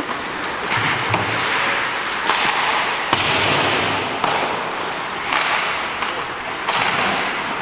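Ice hockey play: a steady rink hubbub with several sharp cracks of sticks and puck, the loudest about three seconds in.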